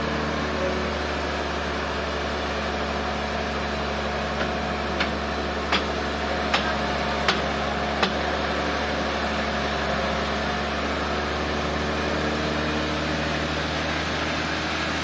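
Sawmill machinery running with a steady hum, with six sharp clicks between about four and eight seconds in.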